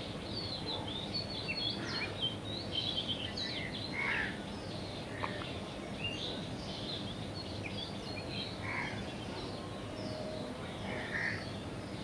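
Wild birds chirping and twittering in many short, overlapping calls over a steady low background hiss of outdoor ambience.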